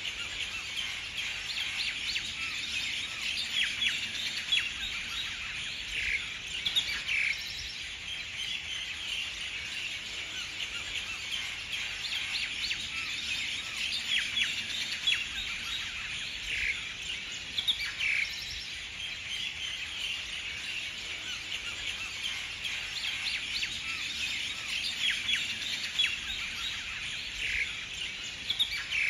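Many birds chirping continuously in a dense chorus of short high calls, with a few louder bursts of calls now and then.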